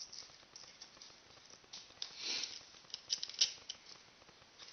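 A metal drawing compass handled against a styrofoam sphere: a short scraping rub about two seconds in, then a cluster of small quick clicks.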